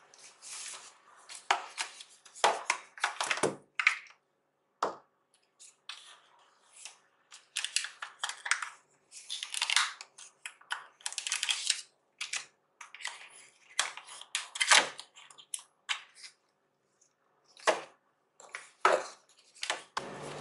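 Irregular unboxing handling noises: a run of short rustles, scrapes and sharp clicks as a cardboard phone box, its insert and plastic-wrapped accessories are handled and set down on a table, with a few brief silent gaps.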